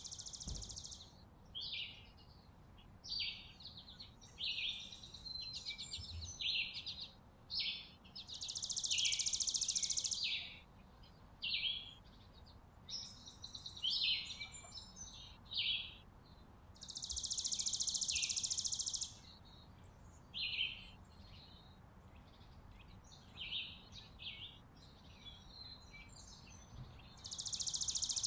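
Songbirds calling: a long, even, high trill of about two seconds, repeated about every nine seconds, with short chirps and twitters in between.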